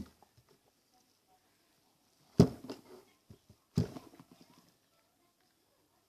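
Slime with mini rubber bands worked by hand: two sharp knocks about a second and a half apart, each followed by a few small clicks and pops.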